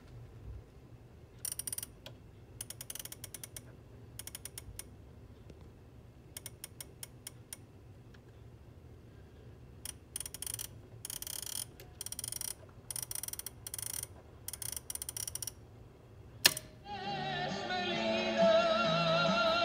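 Hitachi KC-783E flip clock being wound forward by its time-adjust knob: short bursts of rapid clicking as the flip leaves fall, repeated about ten times. Near the end comes a sharp click, and the radio comes on playing music with singing.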